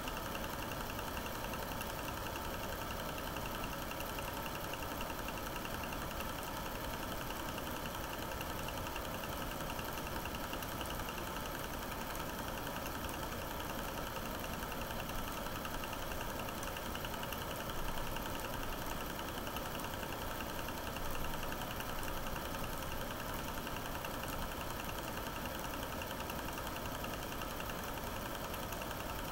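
9.5mm cine film projector running: a steady mechanical whirr with a fast, even clatter of the film transport.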